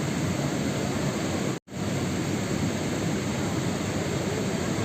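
Steady, dense rain noise with a heavy low rush. It cuts out to silence for a split second about a second and a half in, then resumes.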